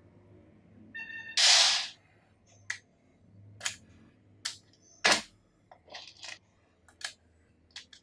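Magnetic-ball wheels snapping onto a track of small magnetic balls: a run of sharp clicks, roughly one a second. Near the start, a brief ringing tone leads into a short, loud rush of noise.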